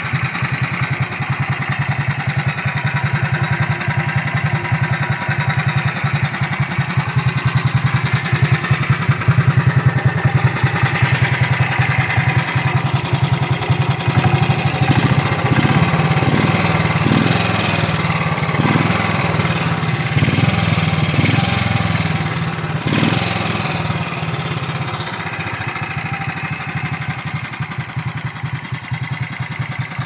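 Moto Guzzi Falcone 500's single-cylinder four-stroke engine idling with an even, steady beat. From about 15 to 23 seconds in it is revved briefly several times, each rev rising and dropping back to idle.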